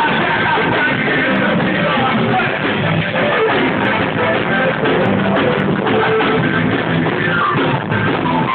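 Forró music playing loud and steady, with guitar and some singing.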